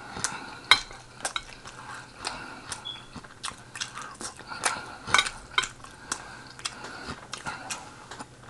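Eating sounds close to the microphone: an irregular string of sharp clicks and light clatter from chewing and utensils at the plate, about two to three a second.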